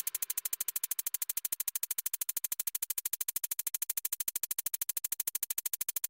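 Background music: a synthesizer sound pulsing rapidly and evenly, about twelve pulses a second, with no other instruments.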